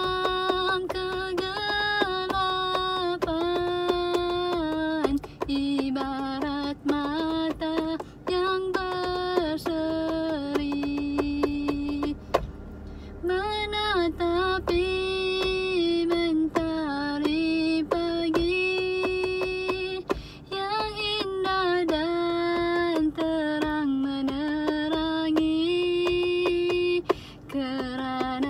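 A woman singing a slow melody with long held notes, a steady run of light taps keeping time beneath her voice from a natural object used as a percussion instrument.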